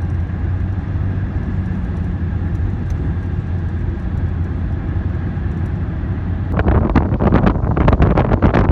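Steady low rumble of a car cruising on a highway, heard from inside the vehicle. About six and a half seconds in, louder wind buffeting on the microphone sets in.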